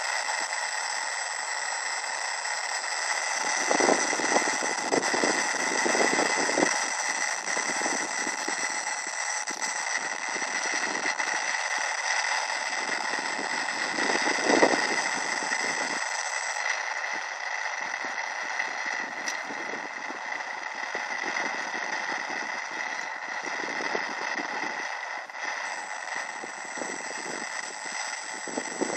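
Steady hiss with several thin whining tones from the FPV monitor's receiver audio, with wind gusting on the microphone now and then, strongest about four to seven seconds in and again near the middle.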